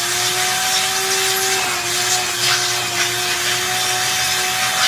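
Barber's vacuum hose run over a boy's head to suck loose cut hair out, its motor running with a steady whine and rushing air. The pitch dips slightly about a second and a half in.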